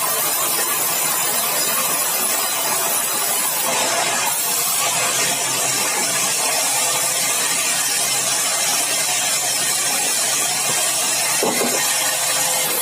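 Sawmill saw running through a large, dry, hard red balau log, a steady loud cutting noise with much high-pitched hiss.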